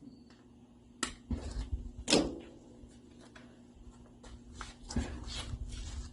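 Irregular knocks and clatters of metal and tools being handled, the loudest about two seconds in with a short ring, over a steady low hum from the shop equipment, likely the MIG welder's fan.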